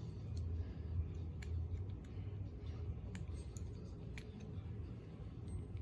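Light, scattered clicks and taps of small plastic toy pieces being handled, about five separate clicks, over a steady low hum.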